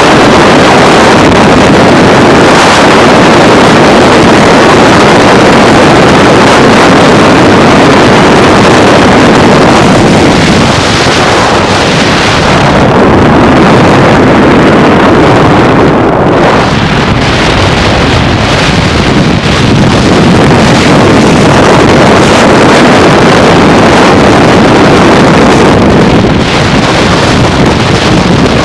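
Wind buffeting the microphone over the tyre and road noise of a car moving at freeway speed, loud and steady with a few brief dips.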